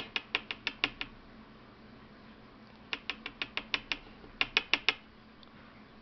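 Small lock pins and a brass lock plug handled against an aluminium pin tray: light metallic clicks in three quick runs of about four to seven clicks each.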